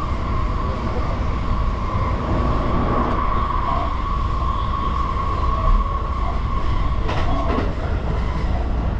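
Sotetsu Line electric express train running on the track, heard from inside the front car: a steady rumble of wheels on rail with a steady high whine over it. The whine stops about seven and a half seconds in, together with a few sharp clicks.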